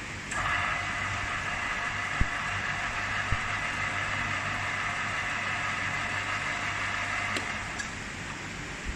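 Bench-top metal lathe (Bumafer TM8-500 / TL0820) switched on, its motor and spindle gearing running with a steady whine over a low hum. It stops with a click about seven seconds in.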